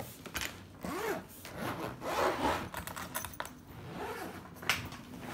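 Hard-shell suitcase being unzipped and opened: a series of rasping zipper pulls and rubbing of the shell, with a few light clicks and knocks as the lid is handled.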